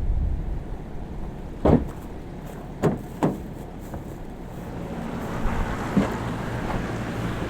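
Three short knocks over a low rumble that fades in the first second, then a rising hiss of noise toward the end.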